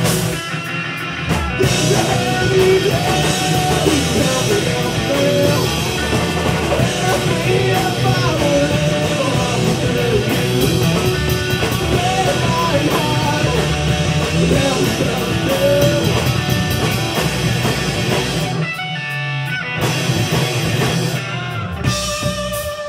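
Progressive-metal band playing live: electric guitar, bass guitar and drum kit playing together at full volume. Near the end the band breaks into short, sharp stop-start hits with brief gaps between them.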